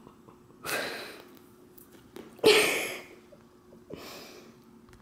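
A person's short, breathy exhales through the nose: two sharp ones about a second and a half apart, the second louder, and a fainter one near the end.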